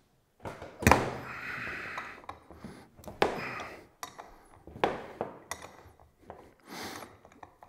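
Handling noise from a camera being repositioned: a few sharp clicks and knocks with rubbing and scuffing in between.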